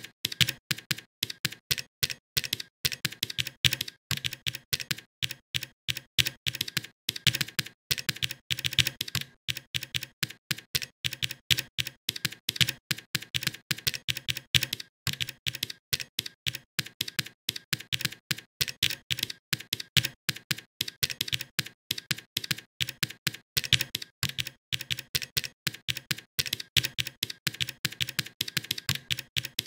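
Computer keyboard typing: a fast, continuous run of key clicks with only brief pauses now and then.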